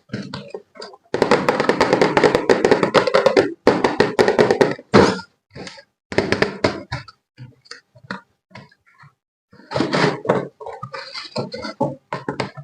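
Objects being handled and knocked together in irregular bursts of clattering and knocks. The clattering is densest and most continuous from about a second in, for a couple of seconds, then comes in shorter bursts.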